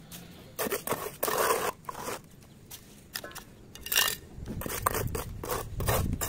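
A mason's trowel scraping mortar: several short, separate scrapes. A low rumble comes in after about four seconds.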